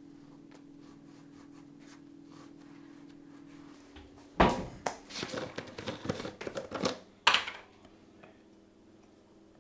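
Kitchen handling noises from preparing food: a sharp knock about four seconds in, then three seconds of clattering and rustling of packaging and containers, ending on another knock. A faint low steady hum runs before it.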